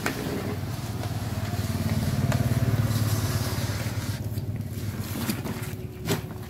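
A road vehicle's engine passes on the street, growing louder to about the middle and then fading away. A few light clicks and a sharp knock come near the end.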